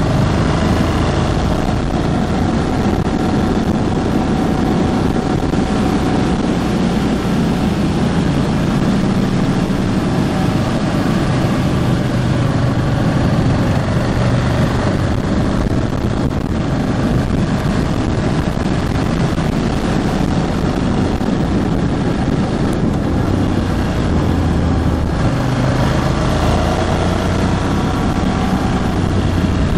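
Ducati Hypermotard 1100S's air-cooled L-twin engine running on the move, its pitch rising and falling with changes of throttle. The engine is still being run in.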